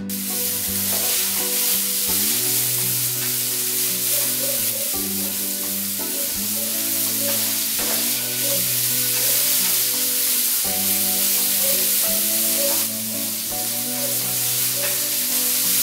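Sliced chicken frying in a hot pan, a steady loud sizzle that starts suddenly, with background music and its changing chords playing underneath.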